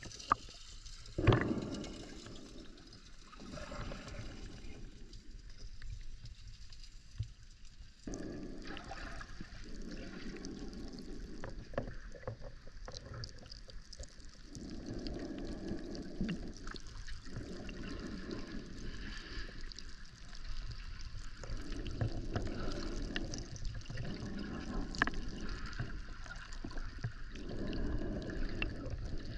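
Muffled underwater water noise from a camera held below the surface of a thermal pool, swelling in low swishes every few seconds with the swimmer's movements, plus scattered small clicks and a sharp knock about a second in.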